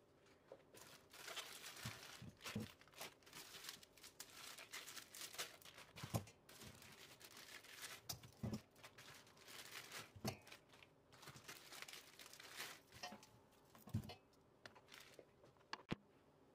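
Plastic freezer bags crinkling and tearing as they are pulled off frozen strawberries, with about six dull knocks of frozen strawberry blocks landing in a stainless steel pot.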